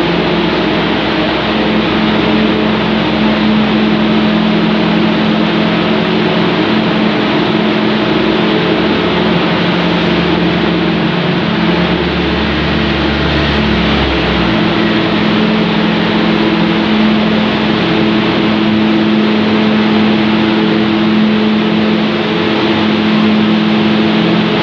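Corrugated cardboard production line machinery running in a factory hall: a loud, steady hum of several held tones over a broad rushing noise, with a deeper rumble that swells for a few seconds midway.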